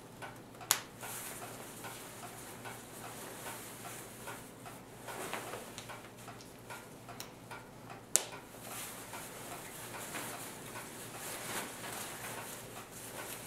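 Snap fasteners being pressed closed along the edge of a USGI Modular Sleep System, joining the intermediate cold weather bag to the patrol bag, with steady rustling of the bags' fabric. Two sharp snap clicks stand out, one about a second in and another about eight seconds in, with fainter ticks between.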